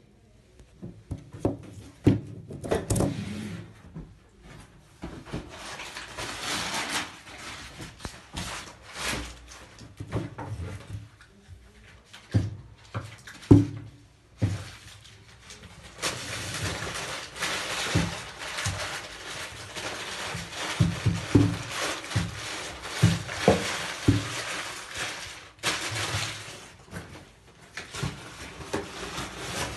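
A large Carraro 047702 seal being handled by hand on a paper-covered table: rustling and rubbing, with scattered light knocks and thuds as it is picked up, turned and set down.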